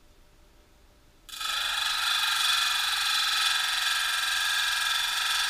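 A small green stone held against the spinning diamond disc of an Ameritool 8-inch lapidary grinder, grinding loudly and steadily under water coolant. The high-pitched grinding starts abruptly about a second in as the stone meets the disc.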